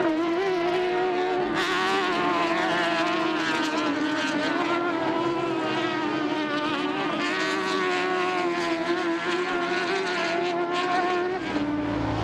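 Race UTV engines running at high, fairly steady revs, the pitch wavering slightly with the throttle.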